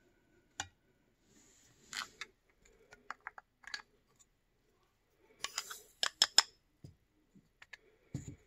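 Light clicks and clinks of handloading: the metal pan lifted off a balance-beam powder scale, and a weighed charge of rifle powder poured through a plastic funnel into a 6.5 Creedmoor brass case. A brief trickle with a cluster of sharp clicks comes about six seconds in, and a low knock near the end as the case is set down.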